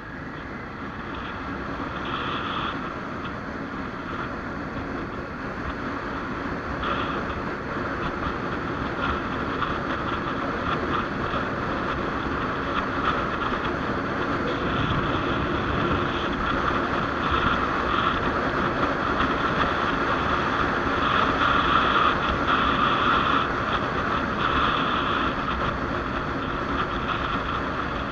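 Riding on a 1994 BMW F650 motorcycle: wind rushing over the microphone with the engine underneath, the noise growing louder over the first twenty seconds or so.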